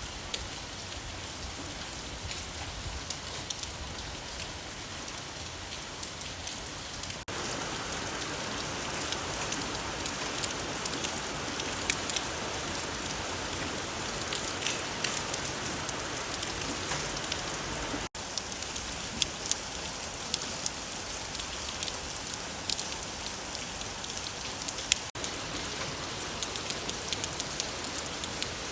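Steady rain falling, a continuous hiss with many individual drops ticking close by. The sound drops out for an instant three times, and after each break the texture changes a little.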